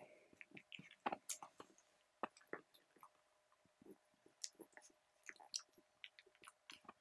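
Yellow Labrador puppies suckling at their mother's teats: faint, irregular wet smacking and clicking, a few a second.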